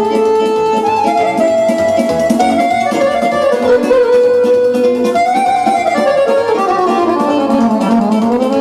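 Electronic piano accordion playing a fast melody of held and running notes, with a long run falling in pitch near the end that turns back upward at the very end.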